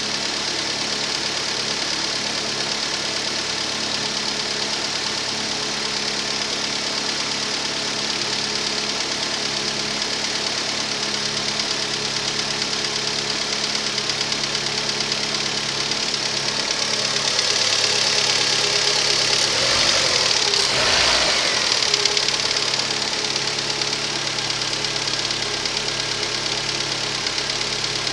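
Rover 25 1.4 K-series four-cylinder petrol engine idling steadily, with the ticking of hydraulic tappets, normal while the engine is cold, and the slight misfire that the owner traced to a faulty lambda (oxygen) sensor. The sound grows louder and hissier for a few seconds about two-thirds of the way through.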